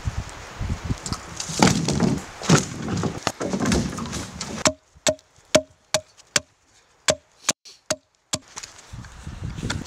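Crunching, rustling footsteps through snow with a few heavier thuds. Then, from about halfway, a clean run of about ten sharp, hollow wooden knocks, roughly two a second, as a blade is struck into wood. The knocks stop near the end.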